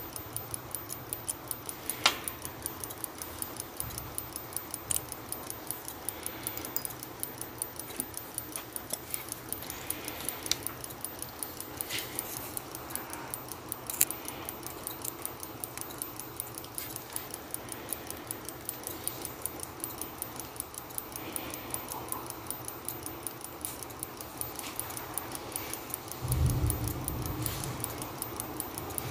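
Small metallic clicks of steel tweezers and tools on a watch movement's plate and parts, with a sharp click about two seconds in and another midway, over a steady fast ticking and the low hum of a clothes dryer that swells briefly near the end.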